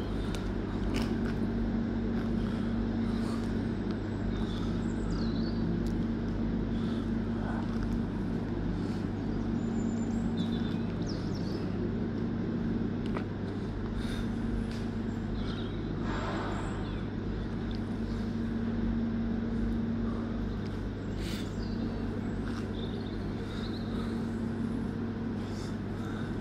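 A steady low mechanical hum, with a few short bird chirps and light clicks over it.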